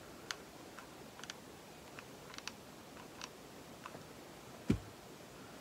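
Scattered light clicks and ticks from hands handling craft materials on a tabletop, with one dull thump about four and a half seconds in.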